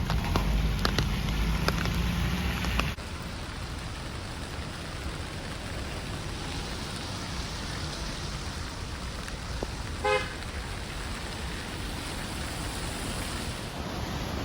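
Heavy rain falling steadily, with low rumble and sharp drop clicks for the first three seconds before the sound changes abruptly to a softer, even hiss. About ten seconds in a car horn gives one short toot.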